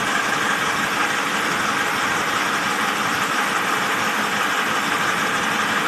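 Toyota BJ40 diesel engine (the B-series four-cylinder diesel swapped into an FJ40 Land Cruiser) idling steadily.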